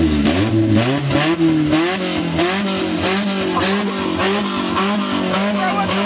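Small car engine revving hard: the pitch climbs over the first two seconds, then is held high with the revs rising and dropping about twice a second. The car is being revved up in the run-up to a burnout.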